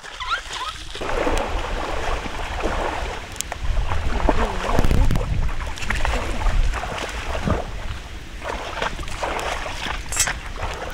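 Wind buffeting the microphone: a low rumble that swells about four to seven seconds in, with faint voices in the background.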